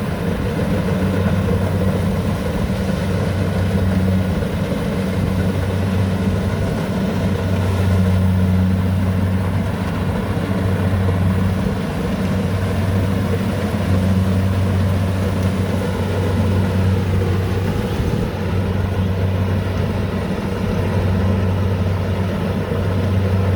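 Rice combine harvester's engine running steadily, a low hum that swells and eases every few seconds.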